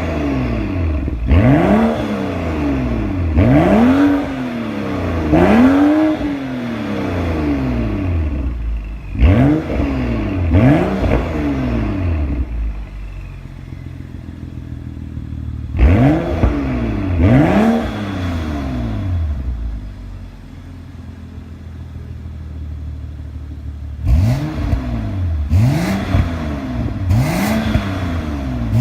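BMW F30 335i's 3.0-litre turbocharged inline-six (N55) through an Fi valved catback exhaust, free-revving while parked: about ten quick blips, each rising and falling in pitch, in clusters of two or three, settling back to a steady idle between clusters.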